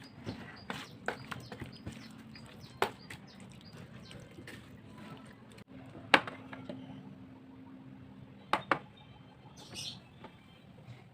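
Irregular clicks and knocks of kitchen utensils over a faint steady hum, with one sharp knock about six seconds in and two more in quick succession later.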